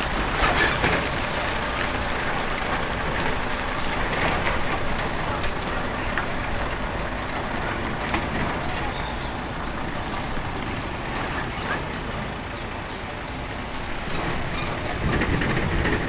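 A Mercedes-Benz box van's engine running at low revs as the van rolls slowly up to a shallow ford. Near the end, more low-pitched noise comes in as the wheels push into the water.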